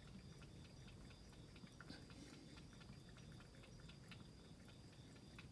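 Near silence: faint background hiss with a few soft scattered clicks.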